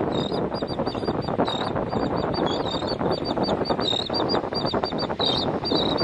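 A flock of royal terns calling without a break, many short high calls a second overlapping, over a steady rushing noise.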